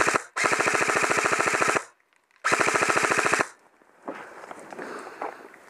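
Airsoft gun firing on full auto in rapid, even bursts: the tail of one burst, then a burst of about a second and a half, then a shorter one. About four seconds in, the firing gives way to quieter rustling.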